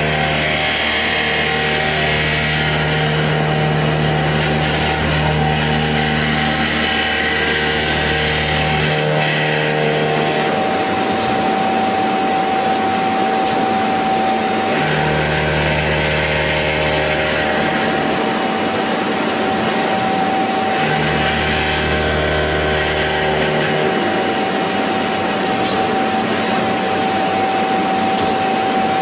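CNC machine tool running: a steady high whine throughout, with a deeper hum that cuts in and out several times, about 9 and 15 seconds in and again near 21 and 24 seconds.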